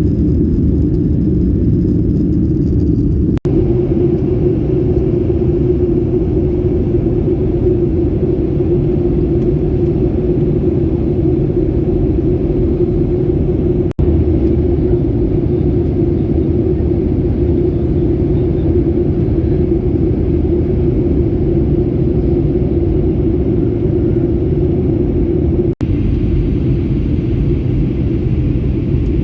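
Jet airliner cabin noise in flight: a steady, deep drone of engines and rushing air heard inside the cabin, broken by three very short gaps.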